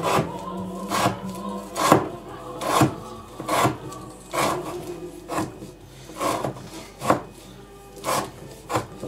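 Elmax-steel knife slicing through rope down onto a wooden board, one quick cut about every second, around eleven in a row.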